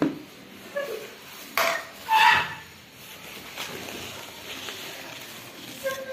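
Knocks and clinks from assembling a portable fabric bookshelf: its plastic-edged panels and metal rods being handled and knocked together. Several clinks ring briefly, and the loudest comes about two seconds in.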